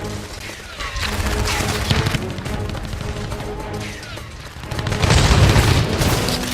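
Music mixed with battle sounds: gunfire, two falling whistles, and a loud blast like an explosion about five seconds in.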